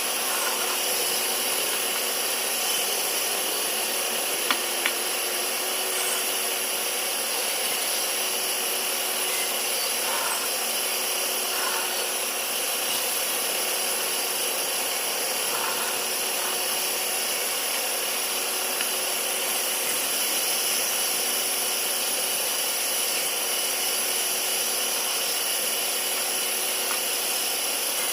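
Bandsaw running steadily through wood, an even high hiss with a few steady tones and two sharp ticks about four and a half seconds in.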